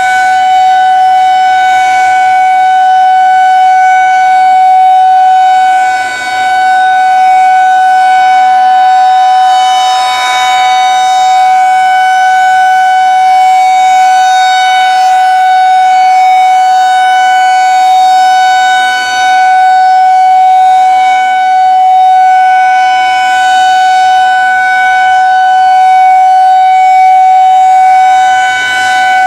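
Federal Signal 2001-DC Roundback rotating electromechanical outdoor warning siren sounding a steady alert tone at full pitch. The tone holds level throughout, and the loudness dips briefly every several seconds as the rotating head sweeps round.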